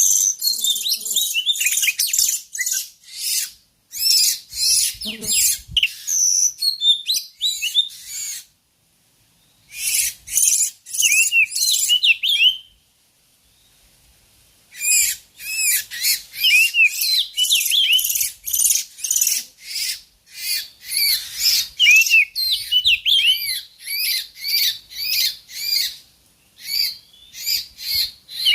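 Oriental magpie-robins calling: rapid runs of high chirps and short arched notes, stopping twice for a second or two before starting again.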